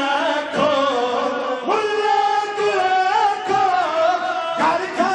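Men singing a devotional qasida together into microphones, with long drawn-out notes that waver and slide between pitches.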